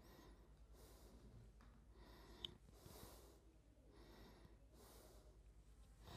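Near silence: room tone with faint breaths close to the microphone and a low steady hum, broken by one short soft click about two and a half seconds in.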